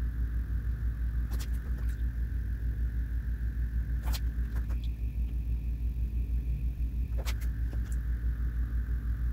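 A steady low rumble with a fast, even throb, with a few faint clicks over it.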